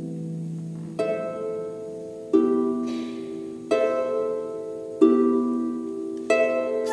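Concert harp plucking a slow line of single strokes, five in all, about one every second and a third, each left to ring and fade before the next.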